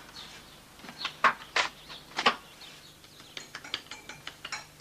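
Spades digging into earth and scraping, about four strokes in the first two and a half seconds. From about three seconds in, light clinks of crockery and cutlery follow.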